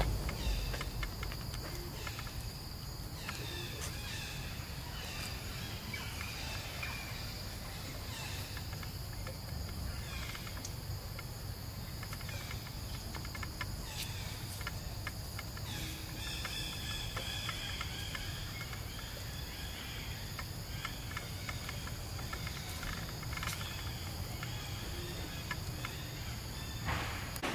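Steady high-pitched drone of forest insects, over a continuous low rumble and faint scattered ticks.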